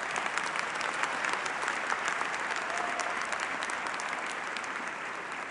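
Large audience of graduates clapping their hands in sustained applause, which eases off slightly near the end.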